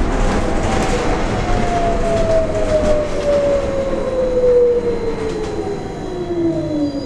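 Electric traction motor of a New Flyer XT40 trolleybus, heard from inside the cabin, whining steadily lower in pitch as the bus slows, over the rumble of the ride.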